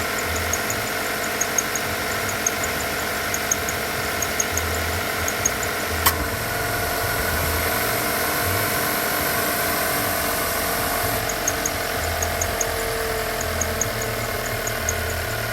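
Subaru Levorg running at a steady idle, with a regular light ticking about once a second that the owner suspects is an abnormal noise. A sharp click about six seconds in is followed by a few seconds without the ticking before it returns.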